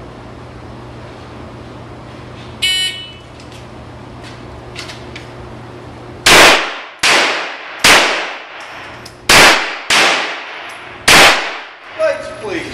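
A shot timer's electronic start beep, then after about three and a half seconds six gunshots in an uneven string (two, one, two, one), each ringing on in the echo of an indoor range. A steady low hum of ventilation runs underneath.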